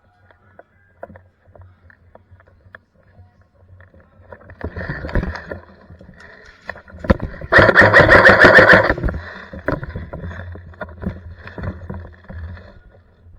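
A burst of full-auto fire from an airsoft electric gun, lasting about a second and a half, is the loudest thing here. It comes after a few seconds of light clicks and handling noise.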